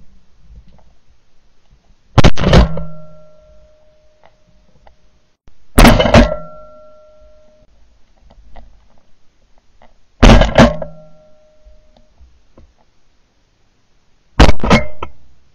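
Four shotgun shots, about four seconds apart, recorded from a camera mounted on the gun. Each is a sharp, very loud blast with a short ringing tail.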